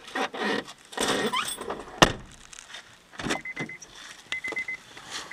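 Handling noises at a car's open rear door as an insulated delivery bag is put onto the back seat, with one sharp thunk about two seconds in. Later, short high beeps sound three times.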